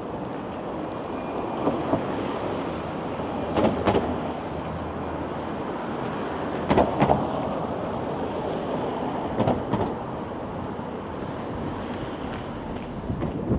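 Strong gusty wind rushing over a wind-muffed wireless microphone as a steady low noise, with short knocks, mostly in pairs, every two to three seconds.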